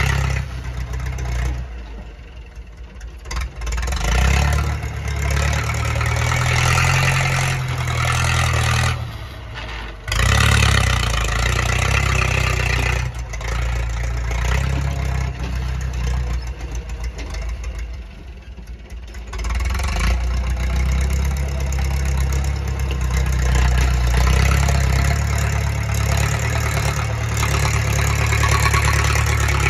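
Massey Ferguson tractor's diesel engine working under load while pushing soil with a front dozer blade. The revs ease off a few times and pick up again.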